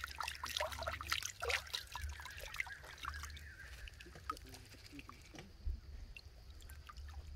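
Shallow stream water splashing and trickling as a hand scoops and rinses water over an opened shell, busiest in the first few seconds, then thinning to scattered small drips and ticks.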